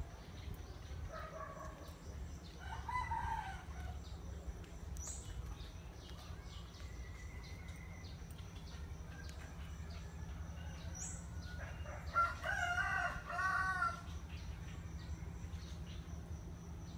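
A rooster crowing, once about three seconds in and again, louder and longer, around twelve seconds in, over a steady low hum.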